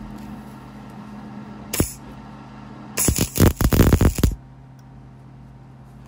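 Welder laying tack welds: one short crackling burst about two seconds in, then a louder run of rapid crackling bursts lasting just over a second, over a steady low hum.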